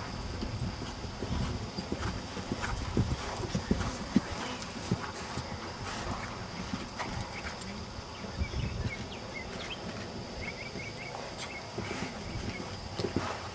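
Hoofbeats of a Swedish Warmblood horse trotting on a sand arena, a run of soft irregular thuds.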